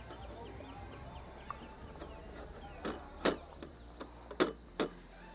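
Alaskan malamute eating freeze-dried food from a small ceramic bowl: about five sharp clacks of chewing and the bowl knocking, all in the second half.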